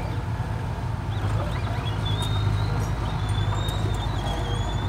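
Small Komatsu crawler dozer's diesel engine running steadily under load as it pushes soil, with a thin high squeal wavering above it from about halfway through and a few faint clinks.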